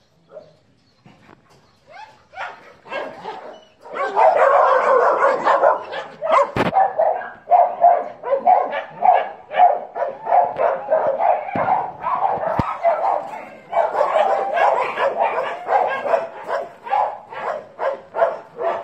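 Dogs barking: a few scattered barks at first, then about four seconds in a loud, continuous run of quick barks, roughly two a second, that keeps going.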